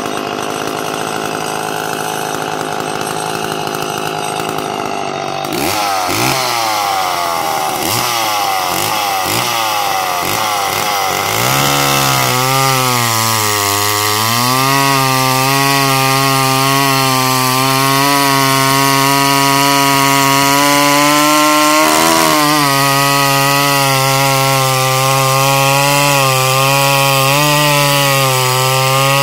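McCulloch Pro Mac 850 two-stroke chainsaw running under load while cutting through a 26-inch hickory round. Its engine note wavers and sweeps for several seconds, then settles from about halfway in into a lower, steady note with the saw buried in the cut.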